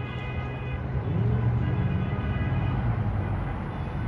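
Distant road traffic on a crowded bridge: a steady low rumble of many vehicles. A held, multi-tone vehicle horn fades out within the first second.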